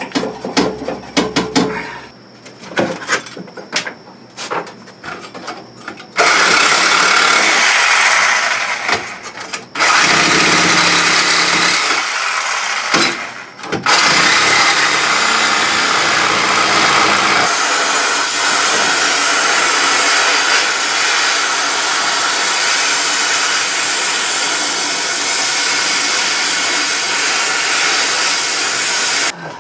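A few metal clanks and knocks, then a handheld power tool running loud and steady on the car's steel, stopping briefly twice before a long continuous run.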